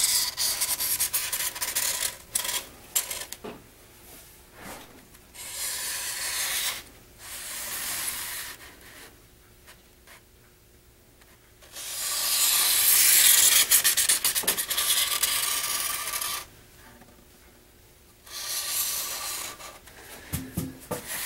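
Felt-tip marker rubbing on white foam board as a circle is traced around a paper plate, in several stretches of a few seconds with quieter pauses between; the longest and loudest stretch comes about halfway through.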